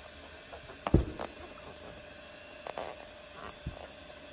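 A single dull thump about a second in, then a few faint clicks and rustles, over a steady low electrical hum.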